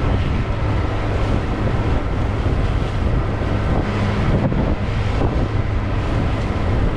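Wind buffeting the microphone over the steady running of a 2010 Carolina Skiff under way, its motor and the water along the hull making a continuous noise.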